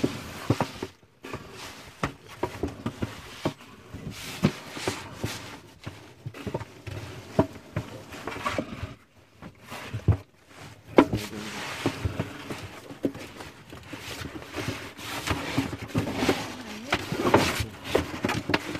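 Irregular knocks, scuffs and scrapes against a wooden crate and loose earth as it is handled while a giant armadillo moves out of it, with some low voices.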